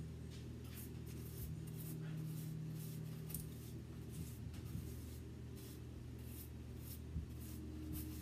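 Pastry brush dabbing and stroking garlic-herb oil onto soft slider bun tops and dipping into a glass measuring cup: a series of faint, soft brushing strokes. A steady low hum runs underneath.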